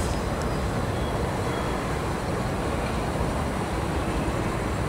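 Gatwick Express Class 387 Electrostar electric train rolling slowly along the track, a steady low noise.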